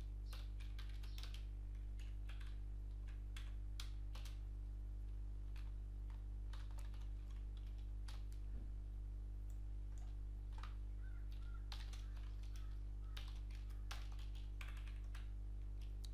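Typing on a computer keyboard: irregular bursts of keystrokes, entering code. Under the keystrokes runs a steady low electrical hum.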